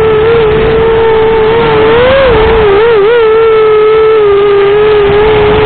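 Eachine Racer 250 quadcopter's brushless motors and propellers whining steadily, the pitch wavering quickly up and down a few times around the middle as the throttle is worked.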